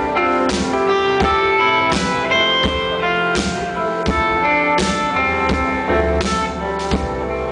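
A live rock band playing, with guitar chords held over drums and repeated cymbal crashes.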